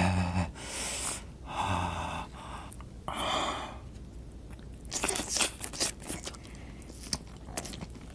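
Close-miked mouth sounds of eating a raw mackerel fillet: a short hum at the start and a few noisy sucking breaths, then a run of quick wet chewing clicks from about five seconds in.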